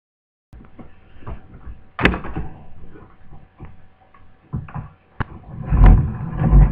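Hands handling laptop parts on a workbench: a run of clicks, knocks and rustling, with a louder knock about two seconds in and heavy thumps near the end as something is set down.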